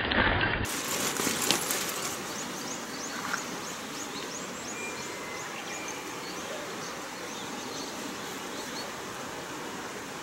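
Outdoor ambience with small birds chirping: short high notes repeating about twice a second over a steady background hiss.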